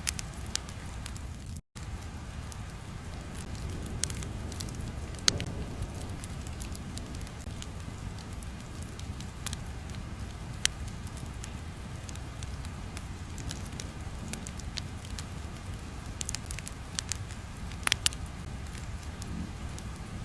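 Fire crackling: a steady low rumble with scattered sharp pops and snaps, and a momentary cut to silence about two seconds in.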